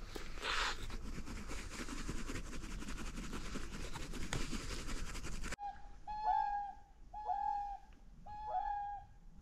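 A steady rushing noise, then after a sudden cut a run of clear honking calls about once a second, each with a short drop in pitch at the end: swans calling.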